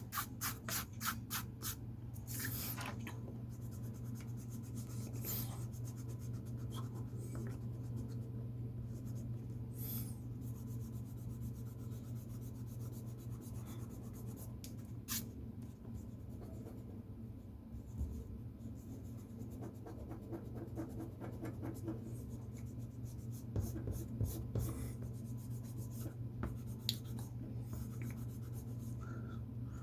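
Drawing on paper: a pen or pencil scratching in short strokes, with runs of rapid back-and-forth strokes near the start and again about three-quarters of the way through, over a steady low hum.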